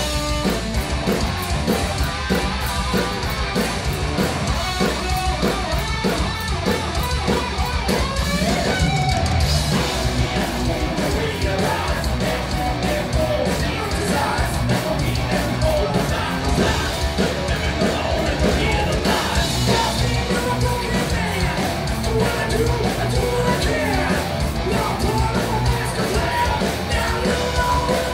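A live rock band playing at a steady loud level: distorted electric guitar, bass and drum kit, with shouted vocals.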